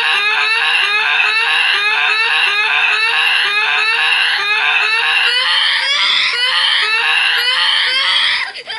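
Screaming sound effect: a shrill scream cut into short rising cries, repeating about twice a second without a break, until it drops away just before the end.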